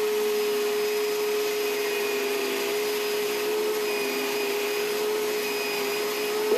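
A small motor running steadily: an even whirring hiss with a constant hum.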